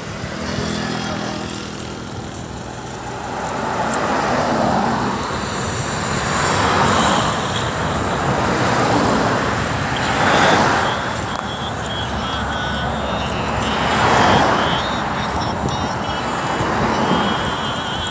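Road traffic: cars and trucks driving past one after another, the tyre and engine noise rising and fading with each pass, about five passes. The loudest passes come about ten and fourteen seconds in.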